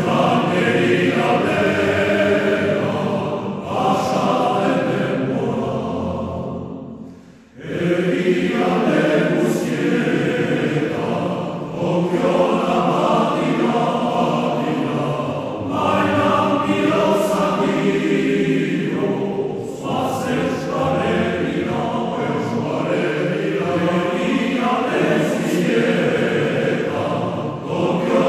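Choir singing as background music, sustained voices in harmony; the singing falls away and starts again about seven and a half seconds in.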